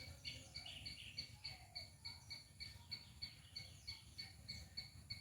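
Palm squirrel chirping in a steady rhythm, about four short high chirps a second. Other faint chirps overlap in the first second or so.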